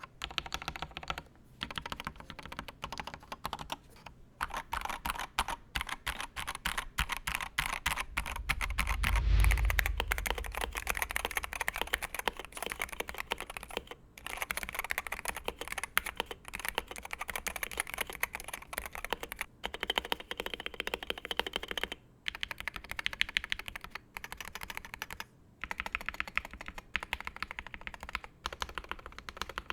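Fast, continuous typing on a Wooting 60HE Hall-effect mechanical keyboard in its stock ABS plastic tray-mount case: dense key clacks with brief pauses. About a third of the way in there is a louder, deep thump.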